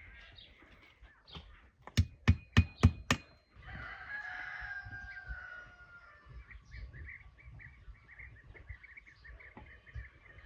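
Five sharp knocks in quick succession about two seconds in, the loudest sound here. Then a rooster crows once for about two seconds, followed by rapid chirping at about four chirps a second.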